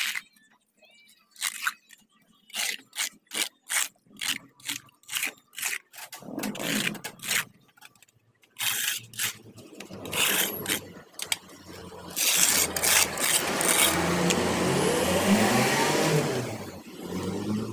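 A short-handled hoe blade scraping mud across the concrete floor of a drainage ditch, in quick strokes about two a second. From about six seconds in, a motor vehicle's engine comes in, revving with rising pitch, and is loudest near the end.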